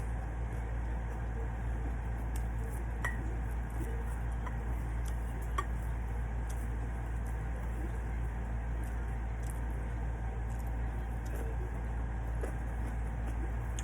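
A person eating at a table, with quiet chewing and a few light clinks, over a steady low hum.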